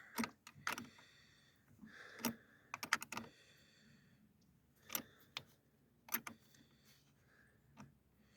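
Scattered light clicks and taps of hand tools on a car battery terminal clamp as its bolt is being worked, with a quick run of three clicks about three seconds in.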